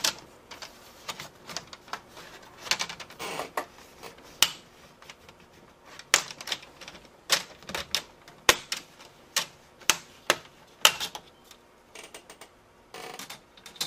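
Plastic snap clips of a Compaq Presario 2100 laptop's screen bezel clicking and popping as the front panel is pried off by fingernail. There are a dozen or more sharp, irregular clicks.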